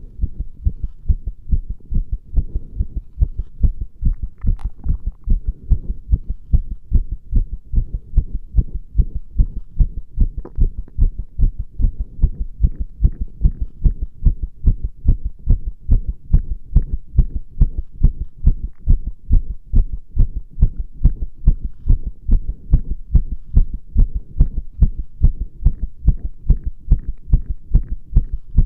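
A human heartbeat picked up with the microphone pressed against the chest: a steady, even run of deep thuds that keeps going unbroken.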